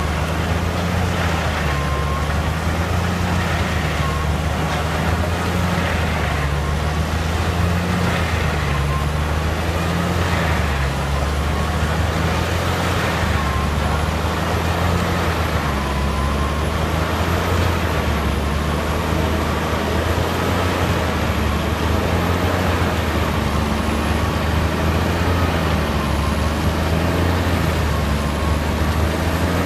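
Jenz HEM 582 drum wood chipper, driven by a Claas tractor, running while it chips branches and blows the chips into a container. It makes a continuous heavy machine drone whose pitch wavers every couple of seconds, with a faint whine above it.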